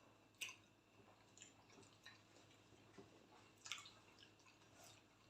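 Near silence with faint wet eating sounds: a couple of soft mouth clicks, about half a second in and again near four seconds, and a few smaller ticks.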